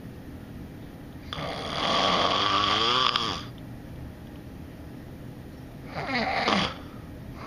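A man snoring in his sleep: one long snore starting about a second and a half in and lasting about two seconds, then a shorter snore near the end.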